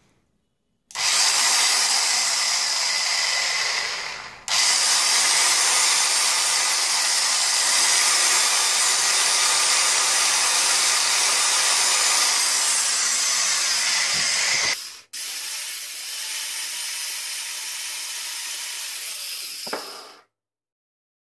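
An old corded Makita electric drill running free with no load in three trigger pulls: a short run, a long run of about ten seconds, then a quieter run. Each run starts and cuts off abruptly.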